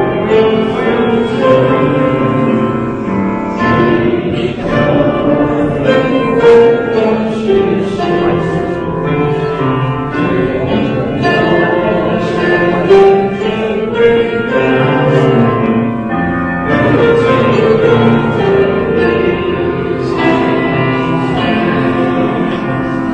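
Piano music with a group of voices singing along.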